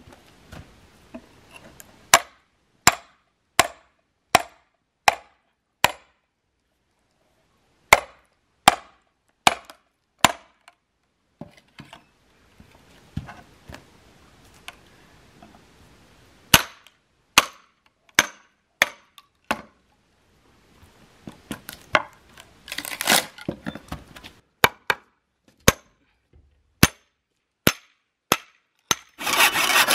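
Sharp metal-on-wood knocks of an axe's poll hammering a hatchet and wedges into a log to split it lengthwise. The blows come in runs, about one every 0.7 s, with pauses between them. Two longer crackling stretches, about two-thirds through and at the very end, fit the wood giving way.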